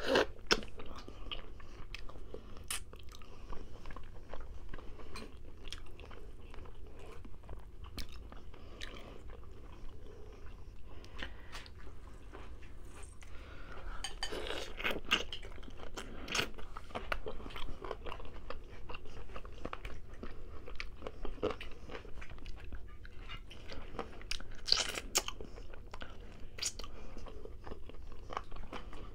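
Chewing and biting of rotisserie chicken, with short clicks and crunches. The loudest bites come about halfway through and again a few seconds before the end.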